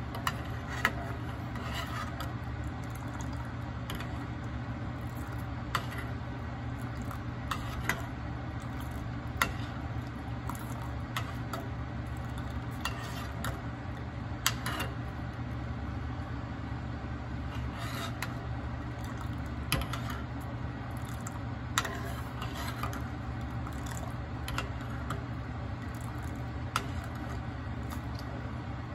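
Utensil stirring milk tea in a pot, clinking against the pot's sides at irregular moments every second or few, over a steady low hum.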